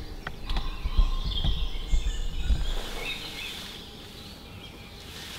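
Wild birds singing, with a low rumble underneath that dies away about halfway through.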